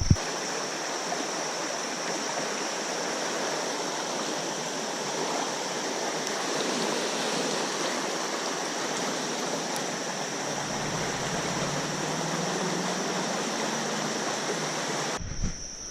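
Flowing river water, a steady even rush that cuts off suddenly near the end.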